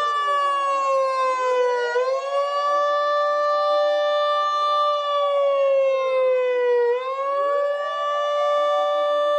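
Emergency vehicle sirens wailing as a convoy of emergency vehicles runs past. One steady siren tone twice sinks slowly in pitch and jumps back up, while other sirens' rising and falling tones overlap it.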